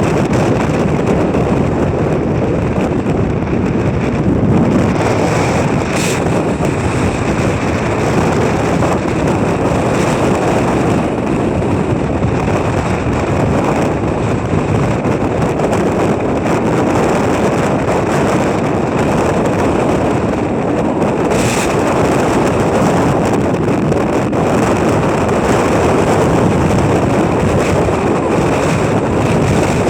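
Strong winter gale on a mountain ridge buffeting the microphone: a loud, steady rushing noise, with two brief sharper crackles, one about six seconds in and one past the twenty-second mark.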